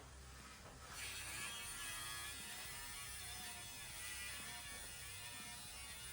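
Background music, with a steady electric buzz that comes in about a second in.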